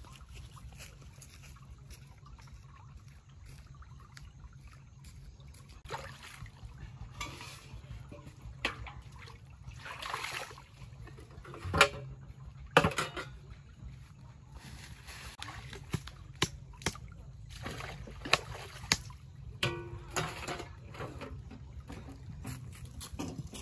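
Water splashing and pouring as containers are dipped and rinsed in a drain, with knocks from an aluminium basin and plastic bucket; two loud knocks come about halfway through, then a run of smaller knocks and splashes.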